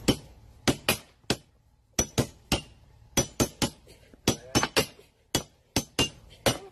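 A series of sharp metallic taps, about eighteen in irregular twos and threes, each with a brief ring: a hard object striking metal.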